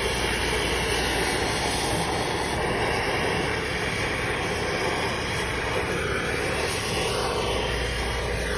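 Steady noise of a brazing torch flame heating a copper refrigerant line joint while a silver brazing rod is fed into it.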